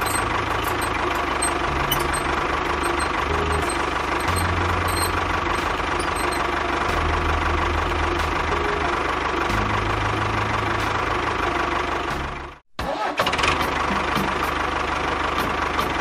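Steady engine-like running of a mini tractor, with a low throb that shifts in pitch now and then as it pulls out of the mud. It drops out completely for an instant about three-quarters of the way through.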